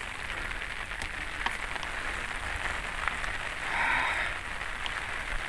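Rain falling steadily, an even hiss with scattered faint drop ticks. A short, brighter sound rises over it about four seconds in.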